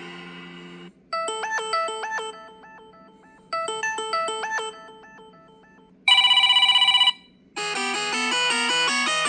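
Preloaded ringtones and notification tones of a Samsung Galaxy A42 5G played one after another: the tail of one tone fades out, a short electronic chime melody plays twice, a pulsing buzzy tone lasts about a second, then a busier, steadier melody starts near the end.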